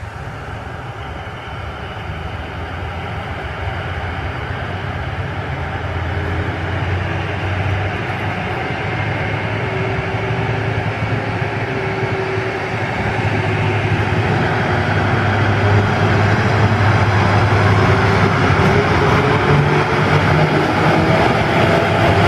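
ČD class 750.7 'Brejlovec' diesel locomotive, rebuilt with a Caterpillar 3512 engine, pulling away with a passenger train. The engine works hard under load and grows steadily louder as the locomotive approaches. A whine rises in pitch from about halfway through.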